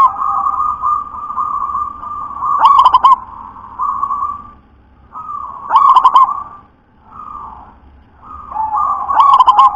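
Zebra dove (perkutut) cooing: a loud rolling coo phrase repeats about every three seconds, with quieter coos between them.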